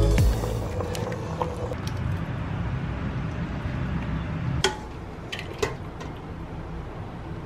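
Soup being ladled out of a stainless steel pot into ceramic bowls: a few sharp clinks of the ladle against the pot, the loudest about halfway through, over a steady low hum.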